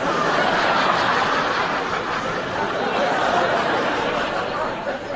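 Studio audience laughing: a swell of crowd laughter that starts at once and eases off near the end.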